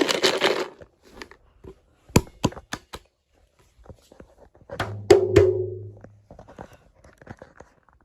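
A series of sharp knocks and taps, several in quick succession about two seconds in and again about five seconds in, with a short low buzzing tone around the second cluster.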